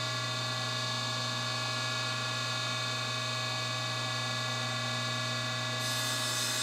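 Table saw running with no load, its blade spinning freely: a steady, even hum.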